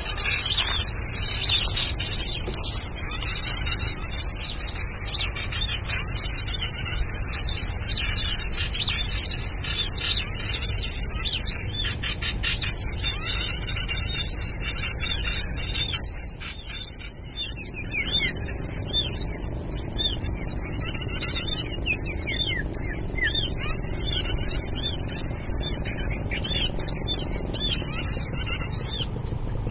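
Bird-lure call recording played loudly through a speaker: a dense, unbroken stream of quick high-pitched chirps and twitters, a busy 'ribut' lure meant to draw male sogon birds to lime sticks. The chirping thins briefly about sixteen seconds in.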